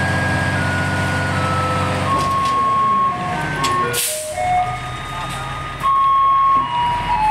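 Taiwanese garbage truck's loudspeaker playing its electronic tune as a run of single beeping notes, over the truck's diesel engine running, which is louder for the first two seconds. A short hiss of air about four seconds in.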